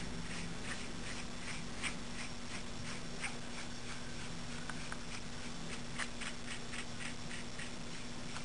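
Paintbrush working acrylic paint on a canvas: a faint run of short, irregular brush strokes, a few each second, over a steady low hum.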